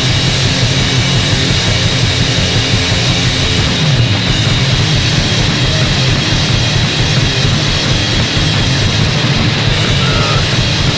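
Punk rock band playing loud: distorted guitar over bass and a steady drum pulse, as a raw demo recording.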